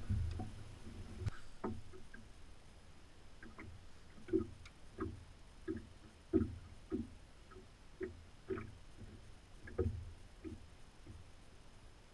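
Small waves lapping against a fishing boat's hull: short, irregular low slaps about one to two a second, some with a faint tick.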